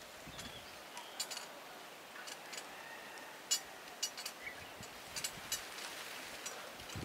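Quiet rural outdoor background with faint bird calls and a scattering of short, sharp clicks and ticks.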